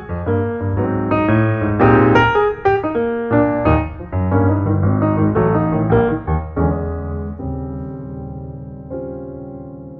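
Background piano music. Notes are played quickly for about the first six seconds, then held chords die away slowly.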